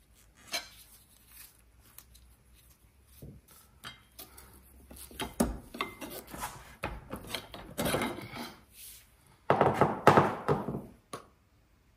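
Metal car parts scraping and clunking as a part is wrenched at by hand to work it free. First a few scattered knocks, then longer bouts of scraping, the loudest near the end.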